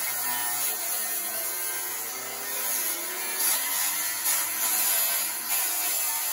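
Angle grinder with a cutting disc cutting through steel exhaust metal: a continuous harsh grinding hiss over the motor's whine, which wavers up and down in pitch as the disc loads and eases.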